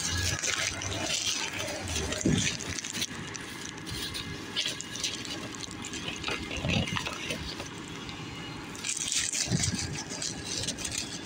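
Rustling and rubbing handling noise as a carried phone's microphone brushes against clothing and a cardboard box, with scattered soft thumps.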